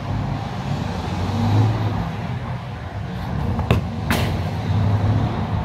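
Steady low rumble of a motor vehicle engine running. Two sharp knocks come close together a little under four seconds in: a soccer ball being kicked and striking.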